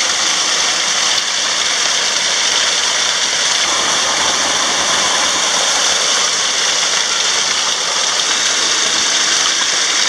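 A small waterfall's narrow spout pouring over rock close to the microphone: a loud, steady rush of falling, splashing water.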